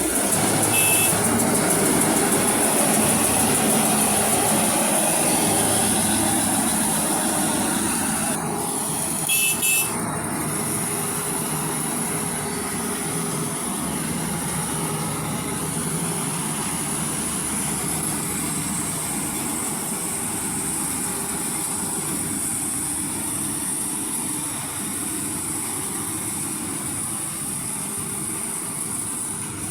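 Maxxi J rice combine harvester running steadily, its engine and threshing machinery giving a continuous drone with a high hiss. Short beeps sound about a second in and again around ten seconds in.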